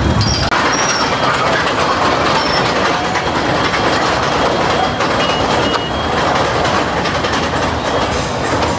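Small mine-train roller coaster climbing its chain lift hill: a steady clattering rumble of the cars and lift, with a few brief faint squeaks.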